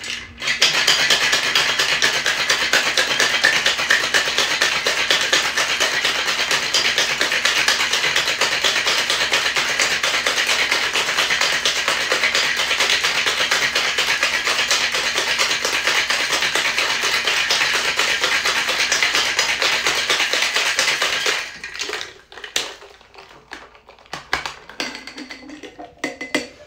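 Ice cubes rattling hard and fast in a glass-and-tin cocktail shaker as a gin, lemon juice and simple syrup mix is shaken to chill and dilute it. The shaking stops about 21 seconds in, followed by a few quieter clinks and knocks as the shaker is handled.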